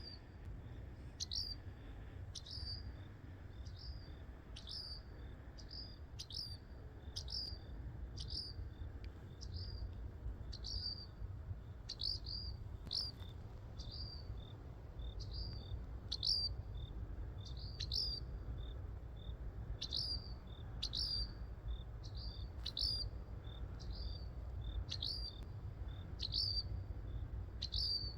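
Small bird repeating a short, high call that slides sharply down in pitch, roughly one to two calls a second and on and on.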